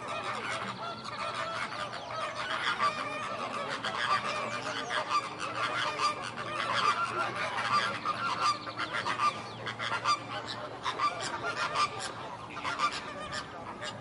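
A flock of flamingos honking: a dense chorus of many overlapping calls at once, without a break.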